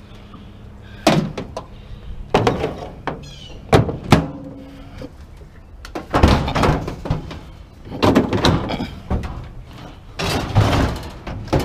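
Sheet-metal scrap appliances, a microwave oven and barbecue grill parts, being shoved and dropped into a loaded pickup bed. Several sharp hollow knocks in the first four seconds are followed by longer bouts of clattering and scraping metal.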